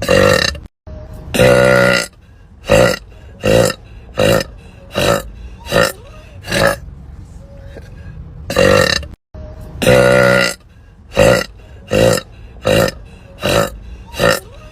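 A woman burping over and over, about fifteen burps, roughly one every second. Most are short, and a few run longer and drawn out.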